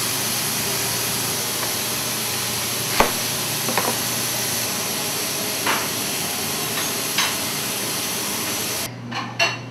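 Steady hiss of commercial kitchen equipment running, with a few scattered sharp knocks and clatters of utensils. The hiss drops away abruptly near the end.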